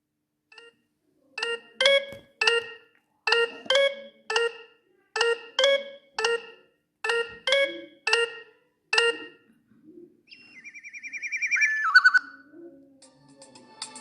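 Sagem MY-750c mobile phone playing a ringtone: a short three-note bell-like figure repeated four times, then a single note. Near the end, a quick run of notes falls in pitch and grows louder.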